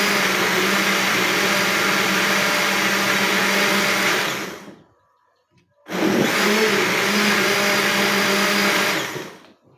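Old Ramtons countertop blender run in pulses: the motor runs steadily, is switched off about four seconds in and winds down, then runs again for about three seconds and winds down near the end. Pulsing on and off like this keeps the motor from burning out.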